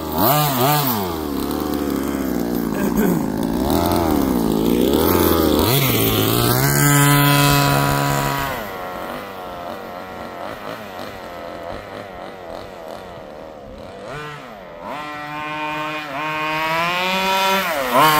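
Exceed Barca 4x4 RC buggy's small two-stroke engine revving on a speed pass: the pitch swings with the throttle, climbs to a high held note about seven seconds in, then drops off and gets quieter, and revs back up near the end.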